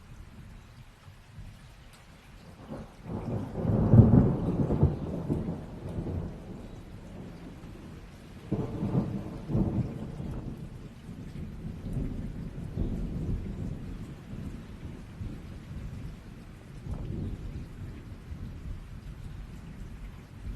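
Steady rain with rolling thunder. The loudest thunderclap builds a few seconds in and rumbles for several seconds, then a second rumble comes about halfway through, and fainter ones follow near the end.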